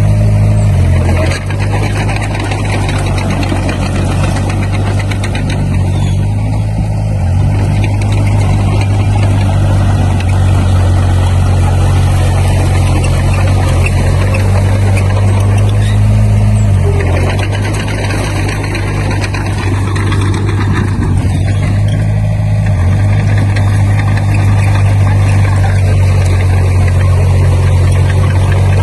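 Diesel engine of a Komatsu D20P crawler bulldozer running steadily under work. Its pitch shifts several times as the load and throttle change, with a dense rattling noise over it throughout.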